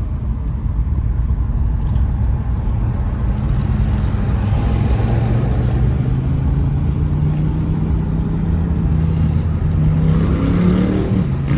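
2018 Mercedes-AMG E43's twin-turbo V6 running under a steady pull, its note climbing slowly as the car gathers speed and dipping briefly near the end, over a constant low road rumble.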